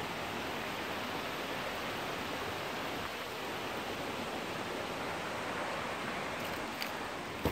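Steady rushing of a creek's flowing water. A couple of faint clicks come near the end.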